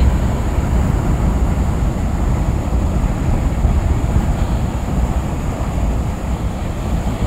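Scania truck cab at road speed: a steady low rumble of engine and tyre noise, with wind rushing in through the open side window.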